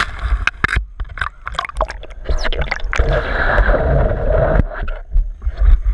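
Pool water splashing and gurgling around a GoPro action camera in its waterproof housing as it breaks the surface and goes under, with many sharp crackles and knocks of water on the housing, then a steadier bubbling hiss about three seconds in.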